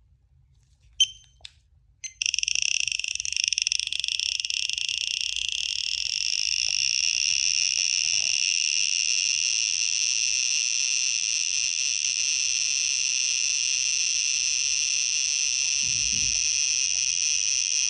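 Handheld Raysid radiation detector beeps briefly about a second in, then from about two seconds in sounds a loud, steady high-pitched buzz. It is held against a natural uranium ore specimen, and the buzz is the detector's audio response to the ore's high radioactivity.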